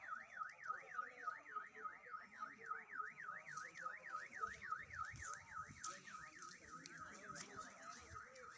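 An electronic alarm warbling steadily, its pitch sweeping up and down about four times a second. Low rumbling noise joins about halfway through.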